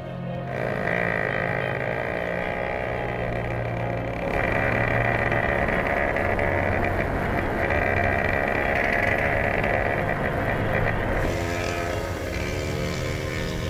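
Small motorcycle engine running as the bike is ridden along, its pitch dipping and climbing again in the first few seconds.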